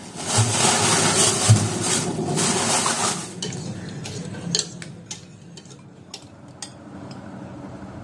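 Kitchen work: a loud rush like liquid pouring or water running for about three seconds, then several sharp clinks of utensils against dishes.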